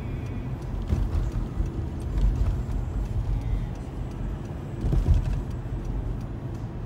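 Steady low road and engine rumble inside a moving car's cabin, swelling slightly about a second in and again about five seconds in.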